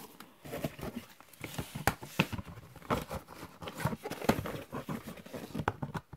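Plastic DVD box-set case and its disc trays being handled: a scatter of irregular light clicks and rustles.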